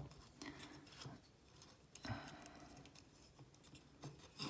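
Faint handling sounds of a wooden puzzle: a cotton string rubbing through the wooden frame and the pieces clicking lightly a few times.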